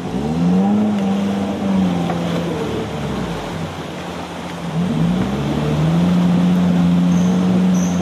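Off-road 4x4's engine revving: its pitch climbs sharply in the first second and holds, sags around the middle, then climbs again and holds steady.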